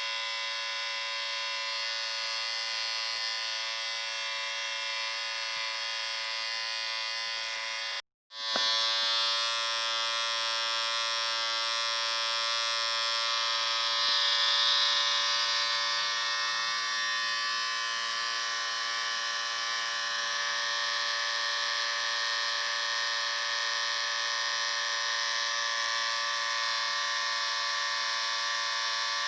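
Electric shaver buzzing steadily, a dense hum with many overtones. It cuts out completely for a split second about eight seconds in, then carries on.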